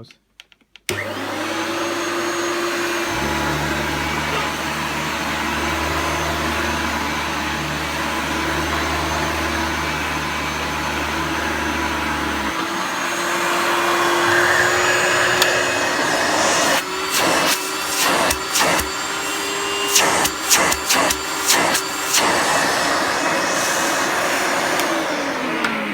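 Hoover Turbomaster U5120 upright vacuum cleaner switched on about a second in, its motor running steadily with a low rumble for the first several seconds. A run of sharp knocks comes between about 17 and 22 seconds, and the motor spins down near the end. The owner says the brush bearings need some maintenance.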